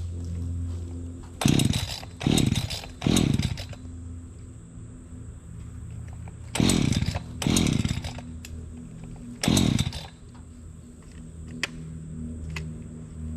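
Echo chainsaw idling, revved up sharply six times, in groups of three, two and one, each rev winding back down to idle.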